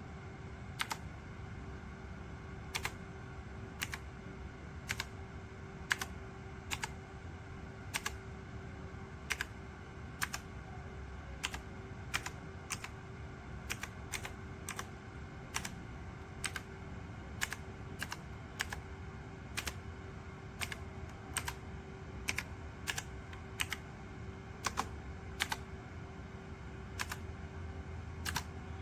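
AULA F2088 mechanical keyboard with clicky blue switches being typed on slowly: separate sharp key clicks at an uneven pace, about one or two a second, over a faint steady hum.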